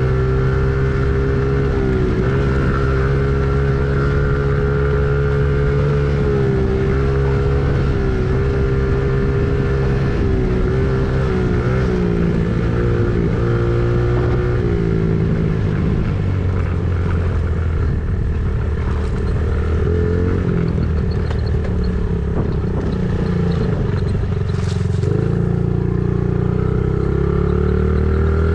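An engine running steadily under varying load, its pitch wavering. It settles lower about halfway through and rises again near the end.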